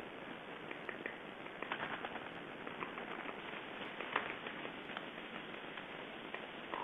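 Steady outdoor hiss with scattered faint clicks and short bird chirps, a louder click about four seconds in.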